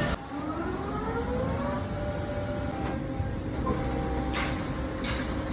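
Chevalier FBL-530C CNC lathe's spindle drive spinning up with a rising whine over about two seconds, then running at a steady pitch. A few short bursts of hiss come near the end.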